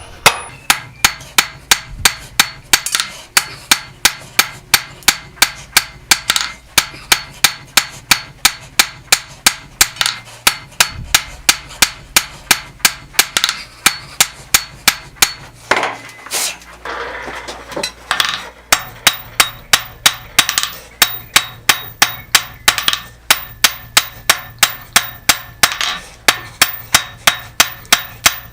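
Blacksmith's hammer striking steel on an anvil in a steady rhythm of about three blows a second, each blow ringing. There is a short break about sixteen seconds in, and then the hammering resumes.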